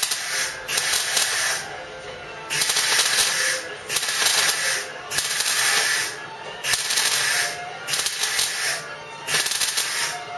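MIG welder laying a butt weld in steel body panel, the arc crackling in short bursts of about a second each with brief pauses between, about eight or nine times, letting the weld pool cool between bursts.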